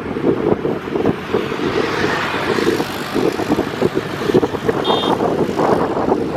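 Vehicle on the move: steady engine and road noise with gusty rumble, and a short high beep about five seconds in.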